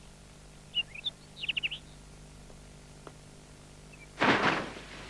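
Small birds chirping in a few quick bursts of high tweets, then a short rustling swish about four seconds in, followed at once by more chirps.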